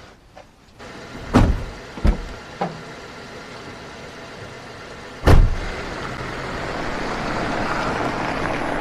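Several short thuds of car doors shutting, the loudest about five seconds in, followed by the steady, slowly building noise of a car moving off.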